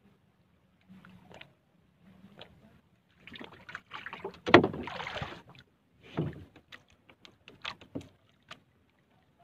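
Knocks and water sloshing around a small wooden paddle boat as a man shifts on it and works a handline over the side. Light, scattered clicks and taps, with a sharp knock and about a second of splashing a little before halfway the loudest, and another thump soon after.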